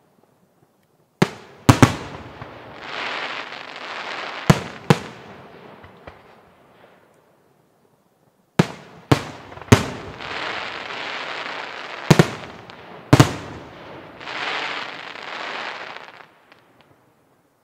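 Aerial firework shells bursting with sharp bangs in two volleys, the first starting just over a second in and the second after a short lull. Each volley is followed by a few seconds of dense crackling hiss.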